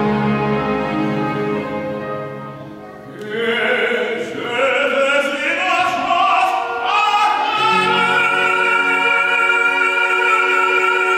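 Male operatic soloist singing with an orchestra. The orchestra plays alone at first and fades a little. The voice comes in about three seconds in, wavering with vibrato, and settles into a long held note over sustained orchestral chords.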